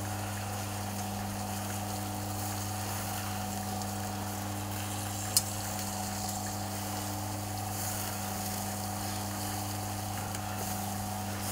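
Small minced-meat kebabs sizzling on a charcoal grill over a steady low hum, with one sharp click of metal tongs about five seconds in.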